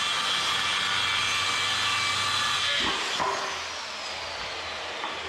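Electric power saw running through a half-inch wood panel, then switched off about three seconds in, its motor whine falling as the blade spins down, with a knock or two as the cut piece is handled.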